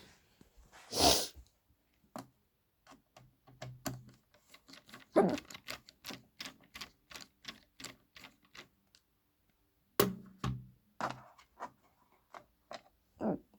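Irregular clicking and tapping of hand tools and plastic parts as a subwoofer is taken apart, with a loud rustle about a second in and a few louder knocks, the loudest around the middle.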